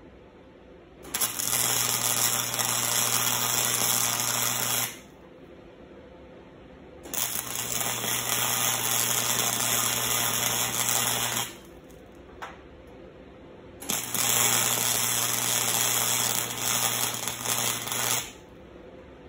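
Wire-feed arc welder welding steel chain links: three runs of crackling, sputtering arc, each about four seconds, with a low hum under the crackle and short pauses between them.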